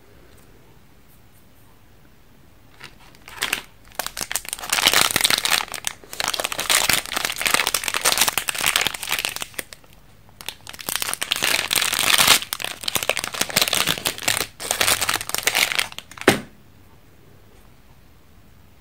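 Foil-lined plastic wrapper of a candy stamp crinkling and rustling as it is torn open and peeled back from the candy. It comes in two long spells and ends with a sharp click.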